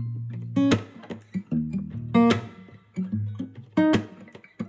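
Background music: guitar, with a sharp strummed chord about every one and a half seconds over steady low notes.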